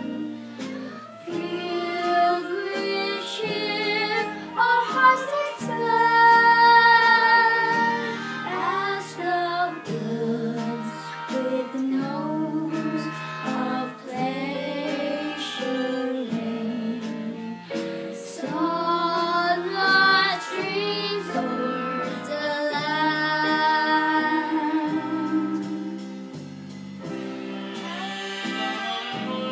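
A young girl singing a slow song solo over instrumental accompaniment. Her voice drops out near the end while the accompaniment plays on.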